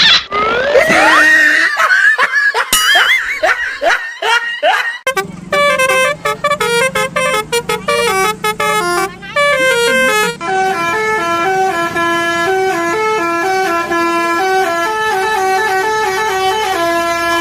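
Musical 'telolet' bus horn playing a fast stepping tune, about three notes a second. The first few seconds are sliding, whooping pitch glides instead.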